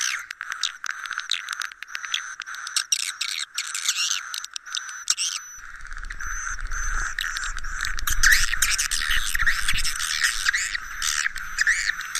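A dense, rapid twittering of edible-nest swiftlets, a 'suara inap' roosting call of the kind played in swiftlet houses to get swiftlets to stay the night. A low rumble joins underneath about halfway.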